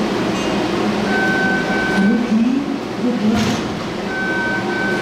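MBTA Red Line subway train standing at an underground platform, with a steady low rumble and hum. A high two-part beeping tone sounds twice, about a second in and again near the end, and a short hiss comes between them.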